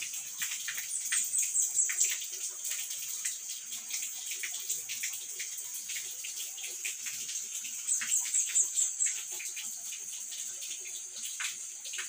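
Water pouring and splashing from a spring-fed bathing spout, with a high, rapid chirping from a small animal twice, about a second in and about eight seconds in.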